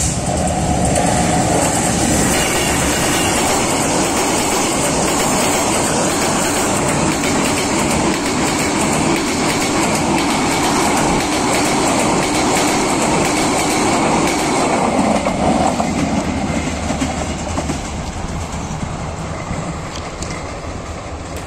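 Diesel-hauled intercity passenger train passing close by, its coach wheels clattering rapidly over the rail joints with a steady rumble. The sound starts to fade in the last few seconds as the train goes by.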